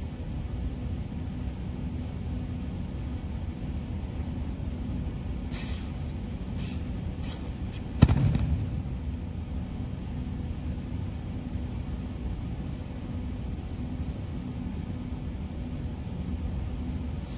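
A judoka thrown onto the tatami: one sharp slap-and-thud of the landing and breakfall about eight seconds in, ringing briefly in a large hall, after a few soft rustles of judogi and feet. A steady low hum underlies it all.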